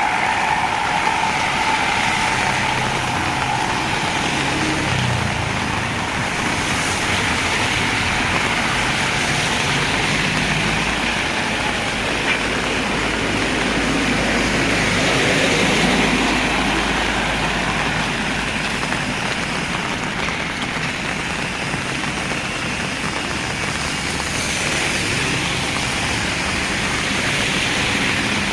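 Heavy rain pouring steadily, with a motor vehicle's engine running low underneath, growing louder around the middle as it passes close by.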